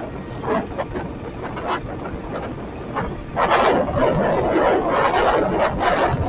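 Motorcycle engine running steadily while under way, with rushing wind and road noise on the bike-mounted microphone. The rushing gets much louder from about three seconds in and stays loud until near the end.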